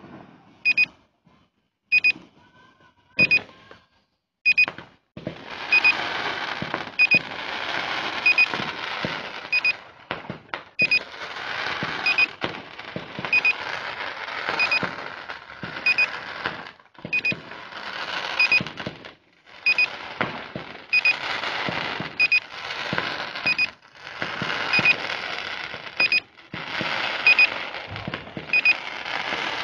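Short, high electronic double beeps repeating at a steady pace, like a device's warning alarm. From about five seconds in they sound over a dense rushing noise that drops out briefly now and then.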